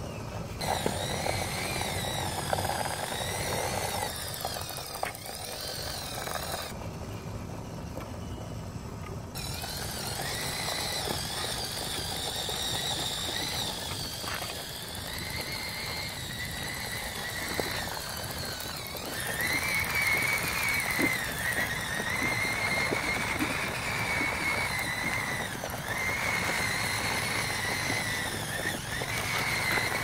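Small electric drive motor of a homemade radio-controlled model bulldozer whining as it drives over sand, the pitch wavering, growing louder and steadier about two-thirds of the way through.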